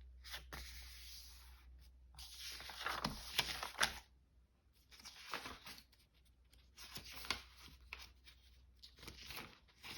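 Sheets of paper being handled, sliding and rustling against each other in several short bursts as pages are gathered into a signature.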